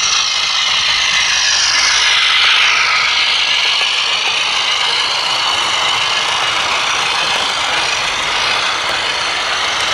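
An OO gauge model train running past close by: a steady running noise, with a high whine that falls in pitch about two to three seconds in.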